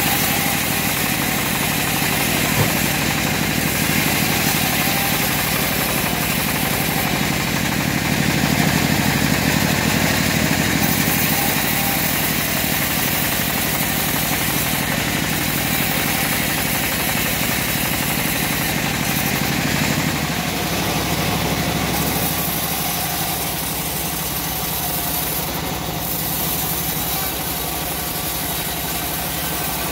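Homemade bandsaw mill running steadily, its blade sawing lengthwise through a short teak log. About two-thirds of the way in the sound thins as the cut finishes and the saw runs on without load.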